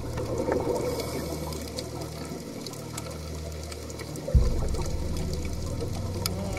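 Opening of a slow, ambient song: a low sustained drone under a faint hiss with scattered clicks, then a deep bass hit about four seconds in, after which the drone carries on louder.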